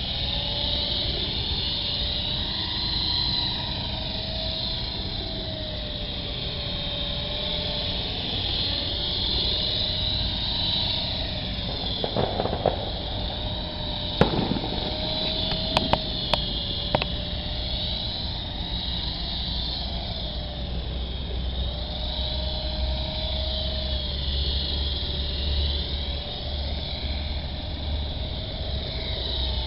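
Big QS 8005 RC helicopter's electric motors and rotors whining steadily in flight. The pitch drifts slightly up and down with the throttle, and a few sharp clicks come about halfway through.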